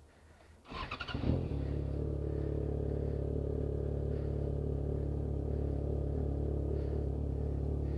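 Yamaha XJ6 inline-four motorcycle engine with a bare, unmuffled exhaust pipe, coming in about a second in and then running at a steady, unchanging speed.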